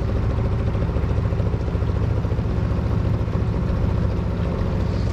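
Small boat outboard motor running steadily at low trolling speed.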